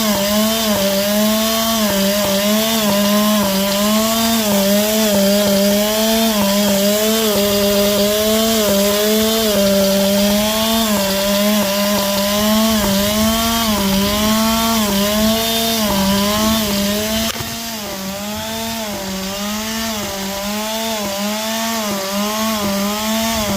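Echo HCA-265ES two-stroke hedge trimmer engine running badly. Its speed rises and falls in a steady surge about once a second, and the sound drops a little in level about three-quarters of the way through. The owner suspects an air leak at the carburettor or a gasket.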